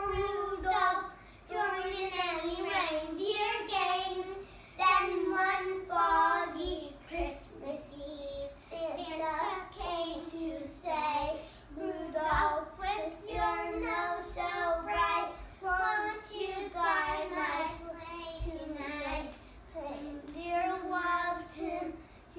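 Young children singing a Christmas carol, phrase after phrase with short breaths between.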